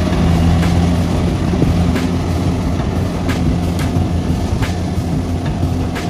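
Kubota combine harvester running steadily as it cuts and threshes rice: a continuous low engine hum, with faint clicks now and then.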